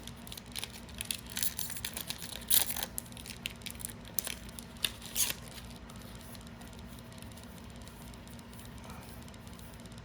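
Trading cards being handled and slid against one another, a run of short swishes and clicks through about the first five seconds, then only a faint steady hum.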